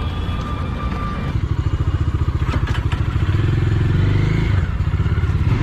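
Single-cylinder motorcycle engine running with a low, rapid pulsing beat, rising in pitch about halfway through as the bike pulls away. A few sharp clicks sound near the middle.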